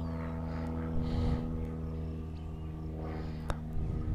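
Spinning reel being cranked to retrieve line, with faint ticking, over a steady low hum of several even tones; a single sharp click about three and a half seconds in.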